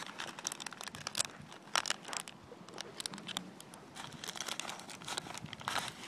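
Faint, irregular crunching of footsteps on coarse, gravelly beach sand.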